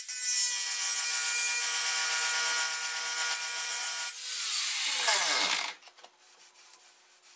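Power tool spinning a stainless steel shrinking disc against the steel front valance, a steady motor pitch with a rasping rub as friction heats the high spots to shrink the metal. A little after four seconds the tool is let off, and the disc winds down with a falling pitch, still rubbing, until it stops.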